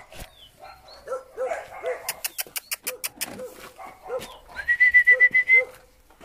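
Puppies whimpering: a string of short, high whimpers every half second or so, and a longer, higher pulsing whine about two-thirds of the way through. A quick run of sharp clicks comes about two seconds in.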